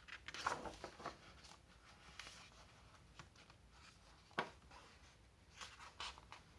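Faint rustling and light handling noises, with one sharp click about four seconds in.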